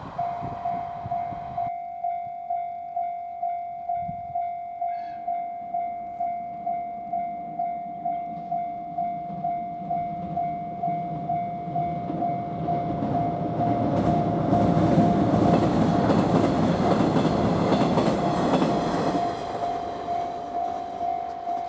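Japanese railway level-crossing alarm ringing a steady electronic tone about twice a second. A little past halfway a KiHa 110 diesel railcar approaches and passes with a rising running noise, loudest for a few seconds, then fades while the alarm keeps ringing.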